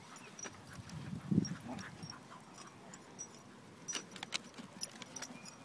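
Dogs running and playing on grass: a dull thump about a second and a half in, then scattered clicks and a brief metallic jingling around four seconds in.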